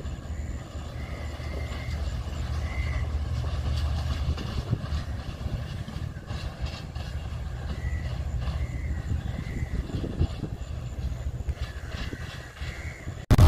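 Low, steady rumble of a diesel passenger train's engine as it approaches slowly, with a few short high chirps over it.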